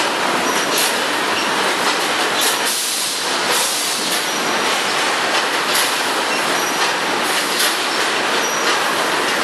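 Automatic detergent powder packaging machines running: a loud, steady mechanical din with brief hisses at irregular intervals.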